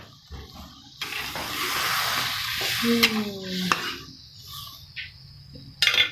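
Spice paste and water sizzling in a hot wok as a metal spatula stirs and scrapes through it, with a sharp knock or two of the spatula on the pan. The sizzle is strongest in the first half and dies down after about four seconds.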